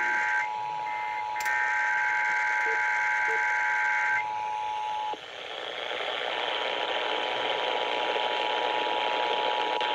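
Emergency Alert System signals received over radio. Warbling SAME digital data bursts run in two stretches, ending about four seconds in, overlapped by the steady two-tone attention signal, which cuts off about five seconds in. After that there is steady radio hiss.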